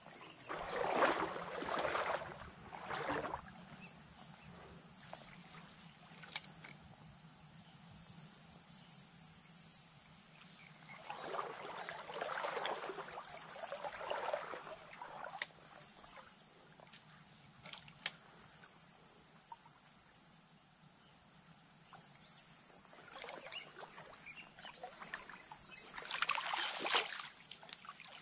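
Insects buzzing high and steady, swelling and fading every few seconds, with several rough bursts of splashing and rustling while a trout is played and netted in a small stream.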